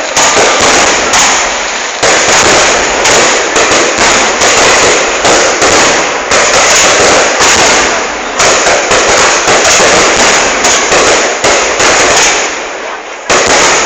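Aerial fireworks display: a dense, very loud barrage of bangs and crackling, with fresh bursts about every second and a brief lull near the end before another volley.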